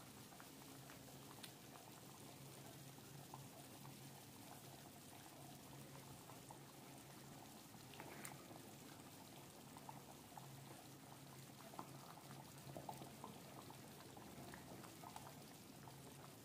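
Fish curry bubbling as it simmers in a pan: faint, irregular pops of bursting bubbles over a low steady hum.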